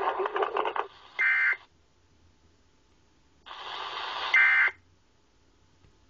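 Emergency Alert System data tones from a television: two short, shrill warbling tone bursts about three seconds apart, each coming after a stretch of harsh static-like noise. Coming right after the spoken test message, these are the end-of-message codes that close the alert.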